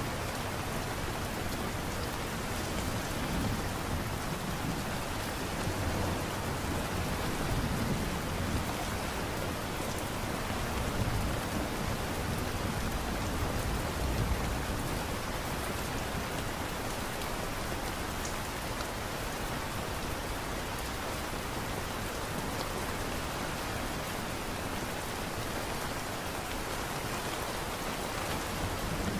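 Steady light rain falling, an even hiss with soft low rumbles coming and going.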